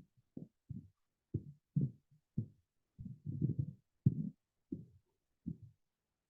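A dozen or so irregular dull taps and thumps, some with a light click on top, from keys or mouse buttons being pressed while CNC control settings are entered.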